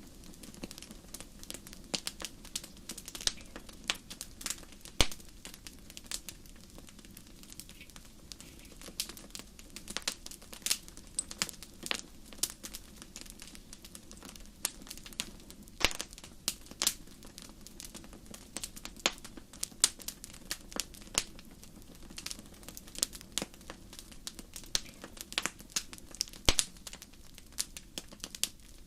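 Campfire crackling, with frequent, irregular sharp pops and snaps of burning wood over a low steady background.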